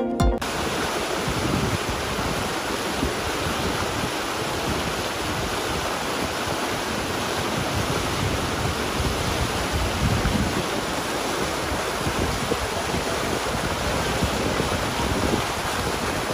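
Fast, shallow mountain creek rushing over rocks in whitewater: a steady rush of water. Electronic music cuts off about half a second in.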